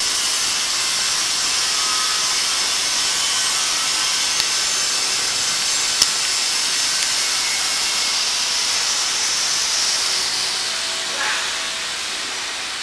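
Roller-fed production machine running with a steady, high hiss, a sharp click about six seconds in. The noise eases a little near the end.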